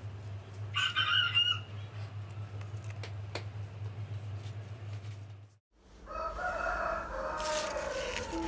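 A rooster crowing, briefly about a second in and again for longer in the second half, its last notes falling. A low steady hum underlies the first half and stops abruptly just past the middle.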